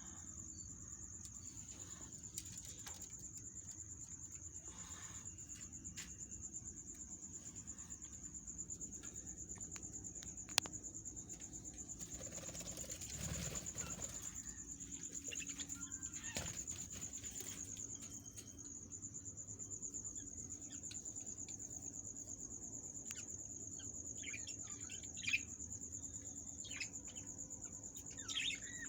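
A steady high-pitched trill runs throughout. A few short chirps from baby parrots come in the last few seconds, with some faint clicks.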